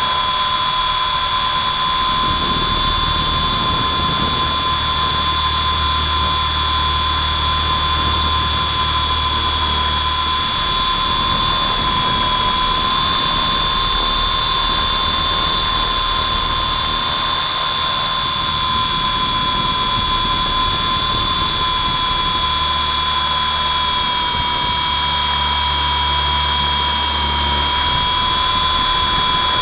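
WLToys V912 RC helicopter's electric motors whining steadily, heard up close from the camera slung beneath it, with a low rumble that comes and goes. The whine sags slightly in pitch near the end.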